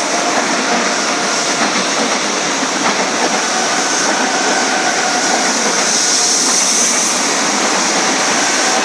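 Electric commuter train passing close by: a steady loud rush of wheels on rails with a faint steady whine.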